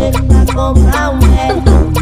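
Background music: a Brazilian rap song with a heavy bass beat of about two hits a second and a melodic vocal or synth line over it.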